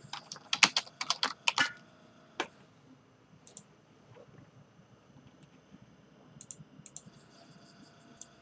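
Computer keyboard typing: a quick run of keystrokes over the first two seconds and one more shortly after, then quiet with a few faint clicks near the end.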